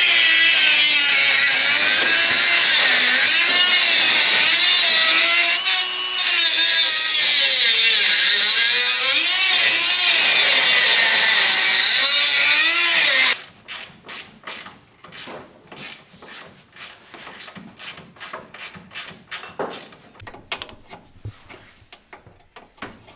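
Hand-held cut-off grinder slicing through a rusted body-to-frame bolt, its motor pitch wavering as the disc bites into the steel and dipping briefly partway through. It stops abruptly about 13 seconds in and is followed by a quieter run of rapid, irregular light clicks.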